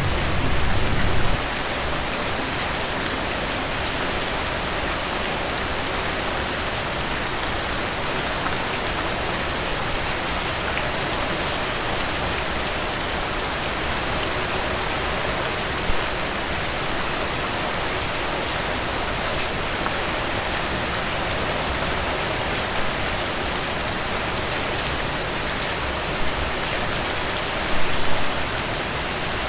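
Heavy rain falling steadily on surfaces, a dense even hiss of drops. A short low rumble sounds in the first second or so, and the rain briefly swells about halfway through and again near the end.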